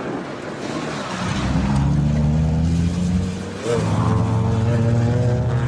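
A motor vehicle engine revving up about a second in, then running steadily at high speed, with a brief drop partway through before it picks up again.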